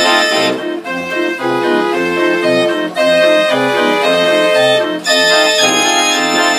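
A Ruth & Sohn concert fair organ playing a tune, its pipes sounding a melody over a regular oom-pah bass, with bass notes and chords alternating about twice a second.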